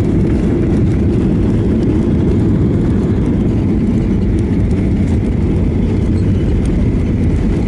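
Deep, steady rumble inside a jet airliner's cabin during the landing rollout just after touchdown, spoilers raised: engine noise and the wheels running on the runway.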